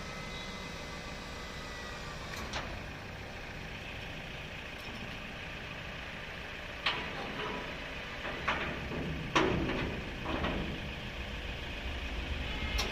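Sharp metal clanks and knocks from the steel loading ramp of a pickup-mounted cattle-catcher body as it is handled and closed. One knock comes early, a cluster of about five follows in the second half, and the loudest is near the middle of that cluster. Under them runs a steady low hum, and a faint thin whine at the start dips and fades out after about two seconds.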